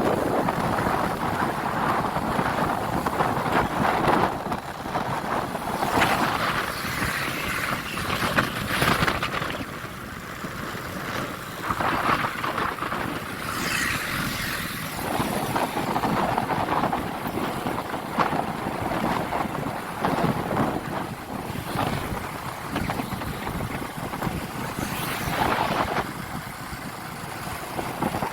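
Vehicle noise with wind buffeting the microphone, swelling and fading irregularly.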